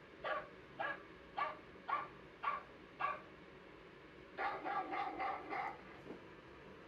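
Recorded dog barking played back: six short barks about half a second apart, then a quicker run of barks about a second and a half later.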